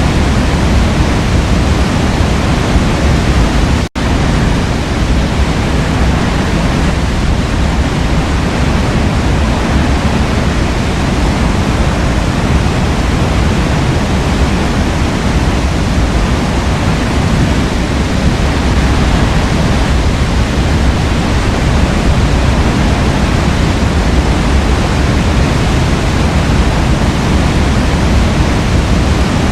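Forest waterfall pouring steadily, a dense, even rush of water with a heavy low rumble, broken once by a split-second dropout about four seconds in.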